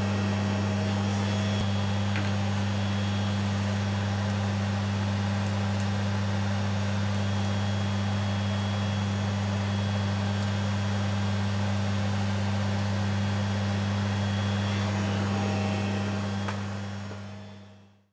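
Steady electric machine hum with a rush of air, as from a workshop extractor or fan motor, holding even and then fading out over the last two seconds.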